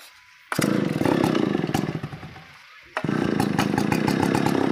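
Two-stroke engine of a new Stihl 070 chainsaw firing on a pull-start and running for about two seconds before dying away, then firing and running again about three seconds in.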